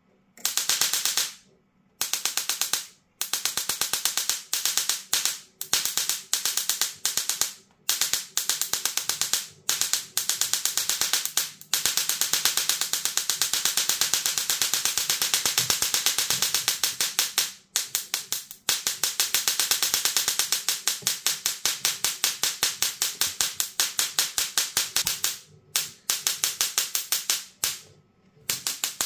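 Small musical Tesla coil's spark discharge crackling and buzzing as a metal blade is held near its discharge needle to draw arcs. The buzz comes in bursts broken by short gaps, with longer unbroken stretches in the middle.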